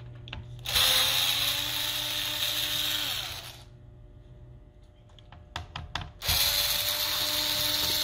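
Electric screwdriver running in two bursts of about three seconds each, backing screws out of the keyboard deck of an HP 15 laptop. A few sharp clicks come between the bursts, and the motor's pitch drops as the first burst ends.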